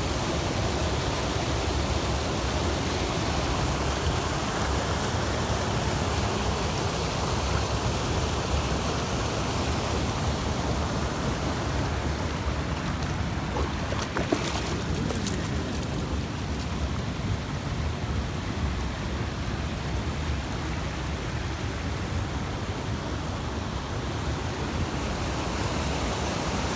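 Mountain stream water rushing steadily over rocks, with a few brief clicks a little past halfway.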